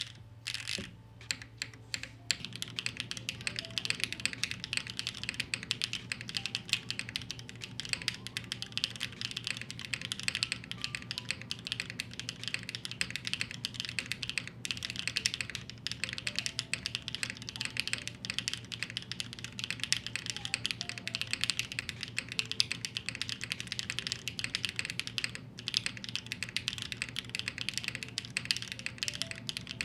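Typing on a Neo75 Cu mechanical keyboard with BCP-style linear switches: a few separate keystrokes, then fast continuous typing from about two seconds in.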